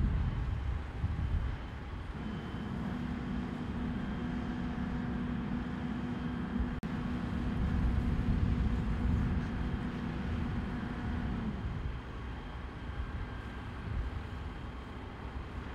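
Steady low engine rumble with a hiss over it, and a steady hum that comes in about two seconds in and stops near twelve seconds.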